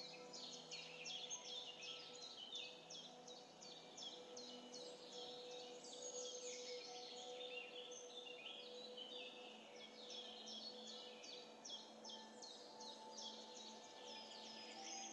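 Faint, continuous chorus of many small birds chirping in quick, overlapping calls, with soft held tones underneath.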